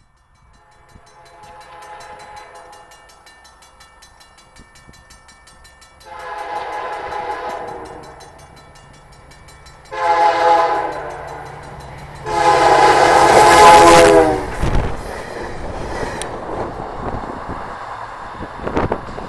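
VIA Rail passenger train's multi-tone horn sounding the grade-crossing signal on approach: two long blasts, a short one and a final long one, each louder than the last. The train then passes close by with a loud low rumble and wheel noise from the rails.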